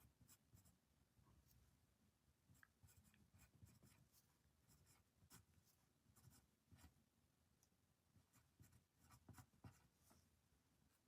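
Faint writing on paper with a pen: a run of soft, irregular scratches and small taps, a little louder about nine seconds in.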